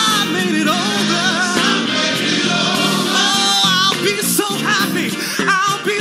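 Male gospel choir singing: a lead voice's wavering, ornamented runs ride above the group's sustained chords.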